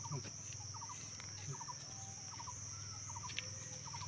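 Faint outdoor ambience: a steady high-pitched insect drone, with a short three-note call repeating about every three-quarters of a second and a low hum underneath.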